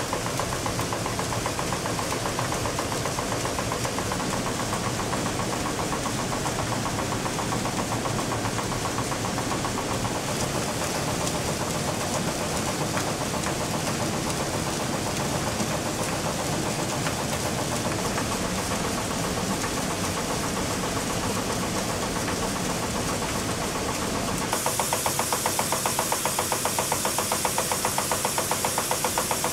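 Water-wheel-driven flour mill machinery running with a steady, dense mechanical rattle and clatter. Near the end it turns into a louder, rapid, even clacking from a shaking grain sieve.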